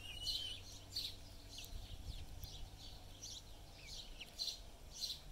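Young chickens peeping: short high peeps about twice a second, with one longer drawn-out peep at the very start. These are the chick-like calls of birds not yet clucking like grown hens.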